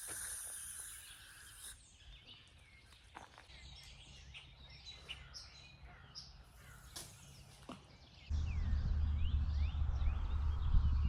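Small birds chirping and whistling, with short rising and falling calls, over a steady insect hiss that stops about two seconds in. From about eight seconds in, a loud low rumble of wind or handling noise on the microphone joins the birdsong.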